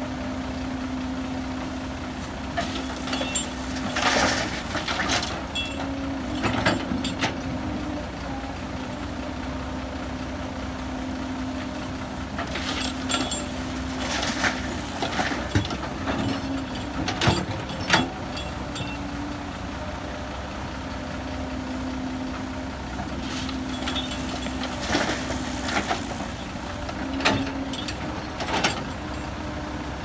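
Caterpillar hydraulic excavator's diesel engine running steadily, its pitch stepping up and down as the hydraulics take load. Three clusters of clattering knocks and thuds come as the steel bucket digs into earth and drops its load into the dump truck's bed; the sharpest knocks are a little past halfway.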